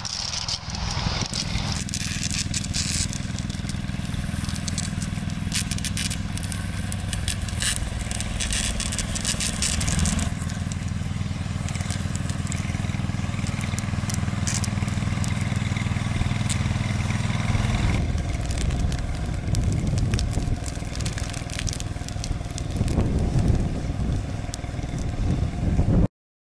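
Engine of a pickup-based fire brush truck running steadily as it drives off-road, with many crackling and crunching noises over it; the sound cuts off suddenly about a second before the end.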